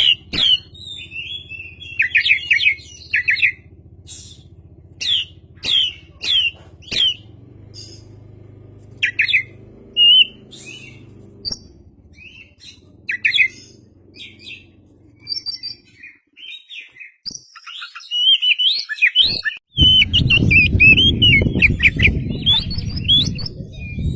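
Oriental magpie-robin (kacer) in full song: loud, sharp chirps and whistled phrases with short gaps between them, turning into a faster, busier warble near the end. A loud low rushing noise runs beneath the song in the last few seconds.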